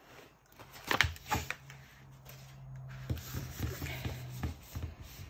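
Crinkling and rustling of a glossy paper sheet and a rolled diamond-painting canvas with its plastic film being handled. There are sharp crinkles about a second in and a run of them in the second half, over a faint low hum.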